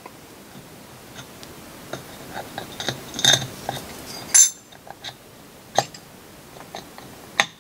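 Metal parts of a variable-geometry turbocharger clinking and scraping against each other as the compressor-side plate is fitted by hand onto the centre section: scattered light clicks, with a few sharper ringing metallic clinks, the loudest about four and a half and seven and a half seconds in.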